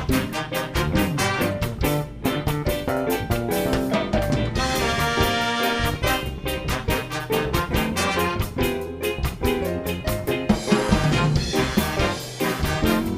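A live band playing with a brass section over a steady drum-kit beat.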